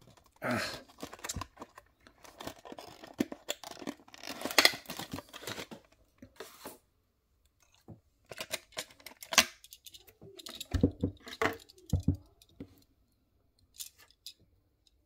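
Cardboard box being torn apart and a clear plastic blister tray crackling as it is handled, in irregular rustling bursts. After a short lull about seven seconds in come separate plastic clicks and a few dull knocks.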